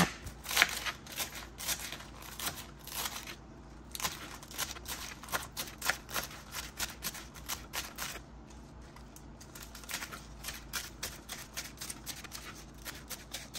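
Kitchen knife chopping crisp lettuce on a plastic cutting board: quick crunchy cuts in runs, each stroke ending in a light tap on the board, with two short pauses.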